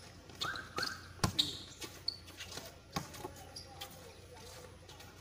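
Basketball bouncing on a hard outdoor court during play: a handful of irregular thuds, the loudest about a second in.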